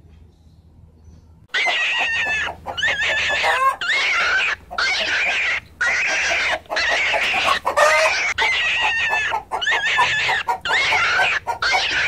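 Chicken clucking in a fast run of calls that starts about a second and a half in, broken by short gaps roughly once a second.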